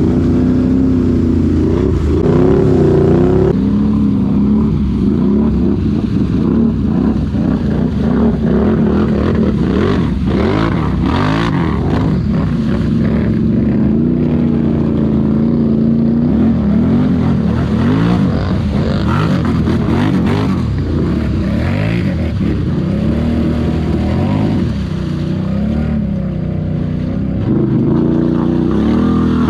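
Can-Am Renegade ATV engines revving up and down over and over as the quads churn through a deep mud hole.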